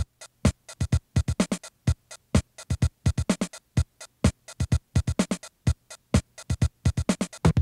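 Background electronic music: a fast, choppy drum-machine beat with synth, its hits separated by short silences.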